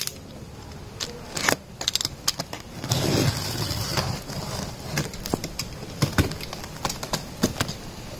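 Utility knife slicing through plastic packing tape on a cardboard box, with scattered clicks and crackles of tape and cardboard and a longer scraping cut about three seconds in.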